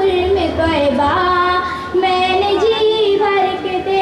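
A girl's solo voice reciting a naat, sung without instruments in long held notes that waver and bend, with short breaks between phrases.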